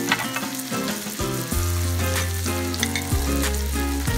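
Sliced onions sizzling in melted butter in a frying pan as they begin to caramelise. Background music with deep bass notes plays over it.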